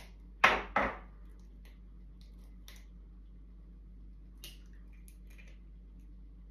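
An egg being cracked with two sharp taps against the edge of a bowl, followed by a few faint clicks as the shell is pulled apart and the egg separated.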